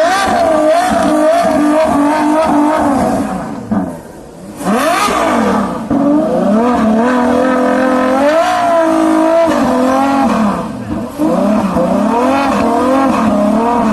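Supercar engine revved hard three times, its pitch climbing and falling with each rev, with a brief drop in level about four seconds in.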